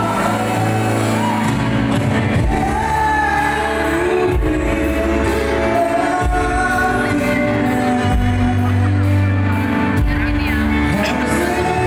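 Live pop band playing: a male singer sings into a microphone over electric guitar, bass guitar and keyboard.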